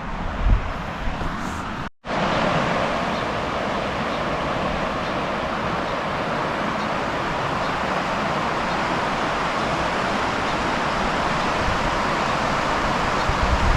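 River water rushing steadily. It starts after a brief cut about two seconds in; before that there is fainter outdoor noise with a couple of bumps.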